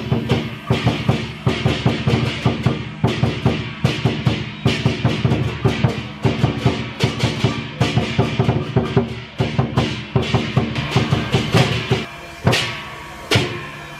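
Percussion music for a dragon and lion dance: fast, driving drum beats with bright crashing metal strikes. It dips briefly about 12 seconds in, then the crashes resume.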